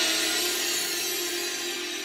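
The closing of a pop song: a held chord over a bright hissing wash, fading steadily out.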